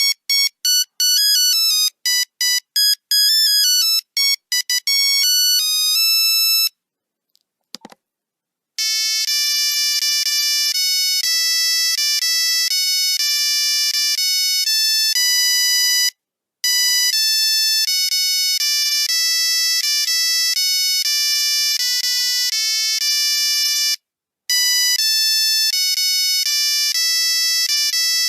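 Nokia 3310 monophonic ringtones: a fast beeping melody of single notes ends about seven seconds in, followed by a short click. A second ringtone tune starts about two seconds later and plays over and over with brief pauses between repeats.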